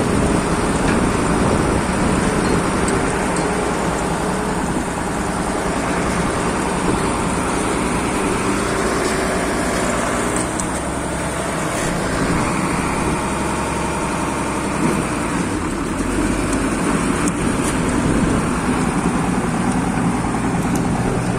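Road roller's diesel engine running steadily.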